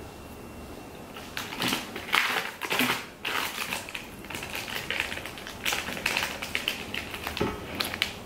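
Crinkling plastic snack wrappers being handled: irregular crackles and rustles that start about a second in and keep going.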